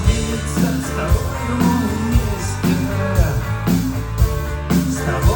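Rock music: a band passage with guitar and bass over a steady drum beat of about two hits a second, with no sung words.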